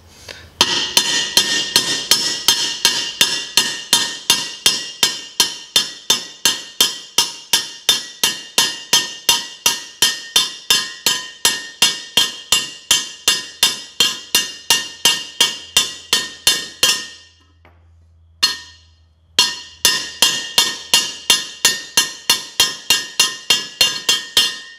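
Hammer striking a steel socket in a steady rhythm of about three blows a second, each a sharp metallic clink with a short ring, driving a new bearing into a washer's aluminum bearing housing. The blows pause about 17 seconds in, with one lone strike, then carry on.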